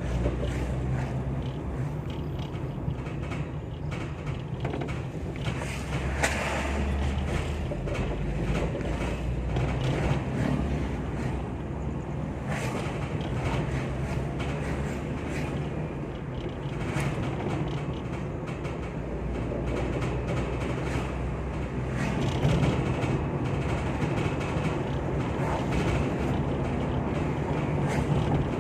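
Ambulance running on the road, a steady engine and road rumble, with frequent short knocks and creaks over it. The title puts this strange noise down to the metal funeral bier (keranda) in the back.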